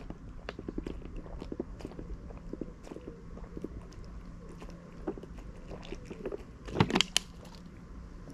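A person gulping water from a plastic bottle: a run of small swallowing clicks, with a couple of louder crackles about seven seconds in.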